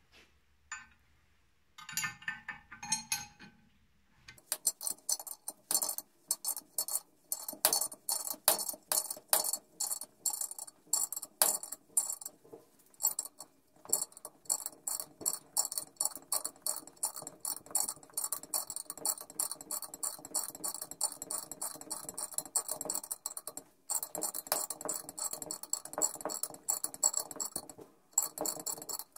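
Ratchet wrench clicking rapidly as it is worked back and forth, turning the nut of a threaded-rod valve-guide puller in a cylinder head. A few metal clinks come about two seconds in, and the ratcheting pauses briefly twice near the end.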